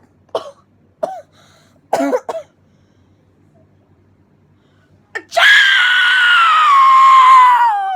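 An exaggerated fake sneeze: a few short, catching 'ah' breaths, then, about five seconds in, a loud, long, high-pitched vocal cry that slowly falls in pitch and drops away sharply at the end.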